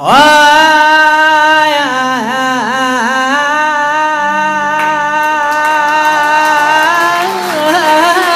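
A man's chanting voice holding one long wordless sung note in Arabic religious inshad style, with quick ornamental dips in pitch a couple of seconds in and a wavering turn near the end.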